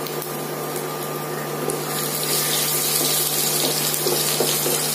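Crushed garlic sizzling in hot oil with cumin and fennel seeds in a non-stick kadai, a steady hiss that grows louder about two seconds in.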